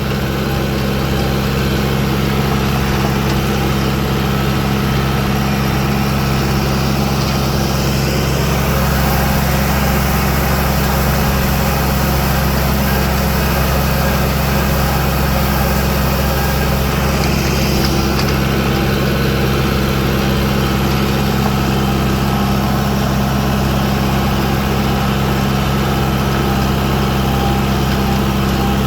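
Tractor engine running at a steady speed while pulling a rake across the field.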